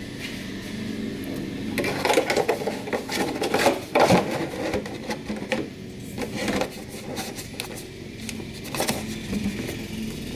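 A piece of cut plastic milk jug being pushed and worked into place against sheet-metal flashing and a coolant pan, with irregular plastic scraping and rustling and a sharper knock about four seconds in.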